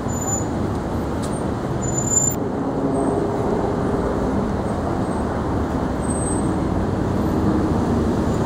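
Steady street traffic noise: the low rumble of road vehicles passing, with a faint engine hum coming in about three seconds in.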